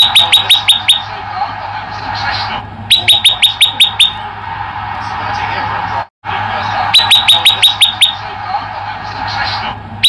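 Male prenjak lumut, a prinia, singing in its cage: rapid bursts of about seven or eight sharp, high, falling chip notes packed into a second. The bursts come three times, every three to four seconds, over a steady background hiss.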